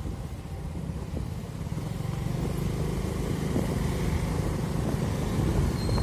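Motor vehicle running along a road: a steady low rumble.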